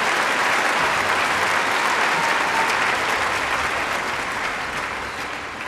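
Audience applauding, a dense steady clatter of clapping that tapers off over the last second or two.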